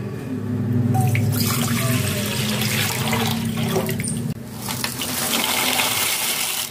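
Water poured from a plastic jug splashing into a pot, with a short break past the middle; near the end dry penne is tipped into the water. A steady low hum runs underneath.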